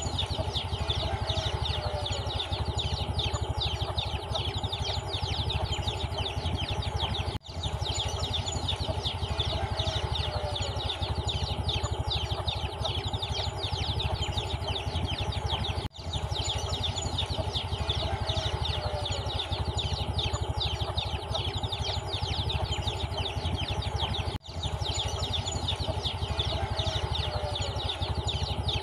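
A brood of chicks peeping continuously over a steady low hum. The same stretch of sound repeats about every eight and a half seconds, cutting out briefly three times.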